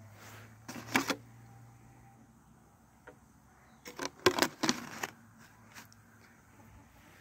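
Clicks and knocks of a plastic bottle being handled, in two bursts: a short one about a second in and a longer cluster around four to five seconds in.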